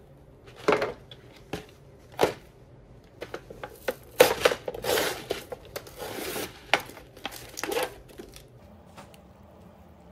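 Plastic seasoning sachets and wrappers crinkling and being torn open, with paper noodle bowls knocking and rubbing. It comes as a series of short rustles and tears that stop about two-thirds of the way through.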